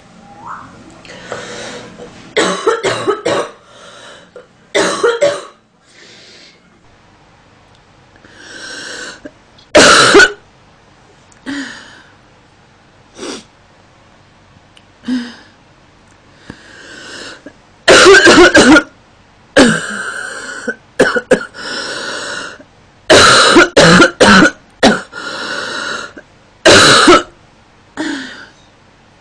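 A woman coughing again and again in short fits, about a dozen separate coughs and bouts with pauses between, the hardest ones about a third of the way in and through the last third.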